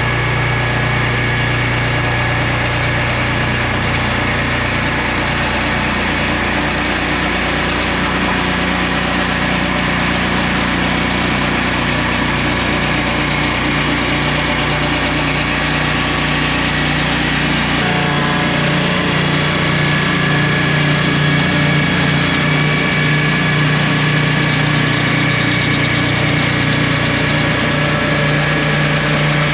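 Engine of a portable swingblade sawmill running steadily, with a change in its tone about two-thirds of the way through.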